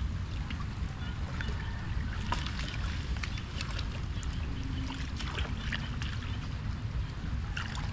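Water splashing and sloshing in a shallow, flowing ditch, with scattered small splashes and clicks over a steady low rumble.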